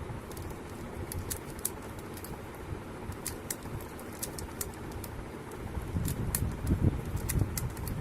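Irregular light clicks, several a second, from hands handling a Moyu magnetic Pyraminx puzzle, over a steady low rumble that grows louder about six seconds in.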